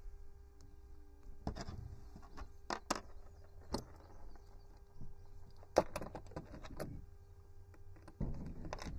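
Scattered clicks and knocks of slip-joint pliers squeezing a plastic compression ring onto a brass garden-hose fitting, and of the pliers being handled and set down. The sharpest click comes about six seconds in.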